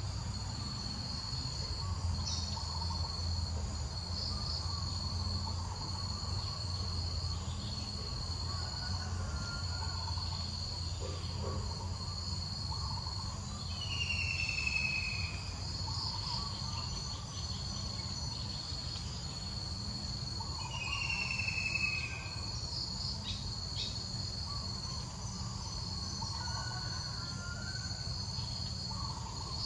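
Steady high-pitched drone of insects in the forest, with a bird's short falling whistle heard three times, about seven seconds apart, over a low steady rumble.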